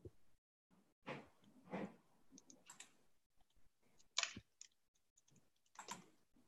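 Faint handling noises picked up over video-call microphones: scattered clicks and short rustles with dead silence between them, the loudest about four seconds in.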